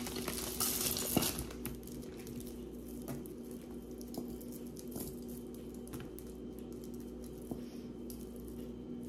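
Costume jewelry being handled: a brief rustle in the first second or so, then scattered light clicks and taps of pieces knocking together, over a steady low hum.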